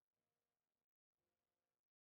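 Silence: the closing music has ended and the sound track is empty.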